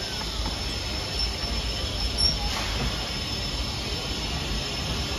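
BR Standard Class 9F 2-10-0 steam locomotive and its train moving slowly along the platform. A steady high-pitched squeal sits over a low rumble.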